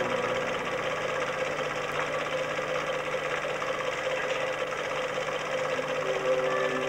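Steady mechanical whirring and clatter with hiss, typical of a film projector running during a home-movie transfer. Faint sustained music notes sit underneath and grow a little louder near the end.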